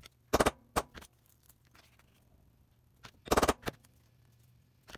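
Ball-peen hammer striking a steel hole punch to punch circles out of paper: two loud clusters of quick sharp blows about three seconds apart, each followed by a lighter tap.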